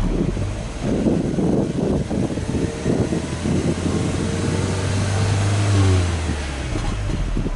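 Subaru Legacy 2.5GT tS's turbocharged flat-four boxer engine running, heard at its quad tailpipes. The exhaust note climbs in pitch and loudness to a peak about six seconds in as the engine is revved, then falls back.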